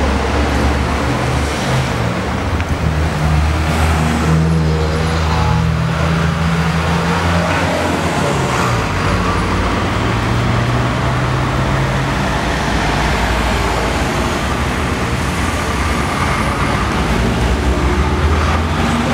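Old Škoda trolleybus standing with its doors open, giving off a steady low hum that shifts in pitch now and then, over the noise of street traffic.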